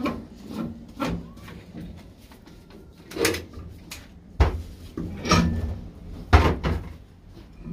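A series of irregular knocks and clunks, about half a dozen spread over several seconds, the heaviest about four and a half and six and a half seconds in.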